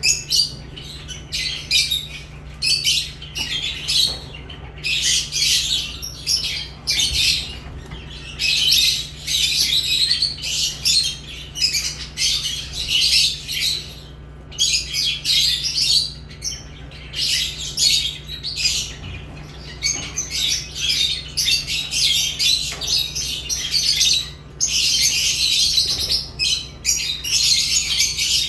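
Lovebirds chirping and squawking in a rapid, near-continuous chatter, with a steady low hum underneath.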